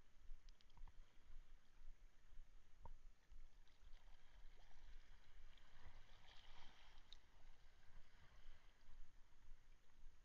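Faint water lapping at the side of a small kayak, with a few light clicks from handling the rod and lure and a soft watery hiss about six seconds in.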